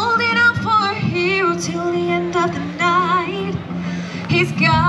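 A woman singing a pop-rock song with a strong vibrato over a backing track with a steady low bass.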